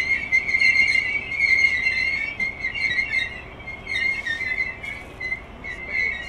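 Railway coach wheels squealing against the rails as the train rolls slowly past: a high, wavering screech that swells and fades in repeated pulses.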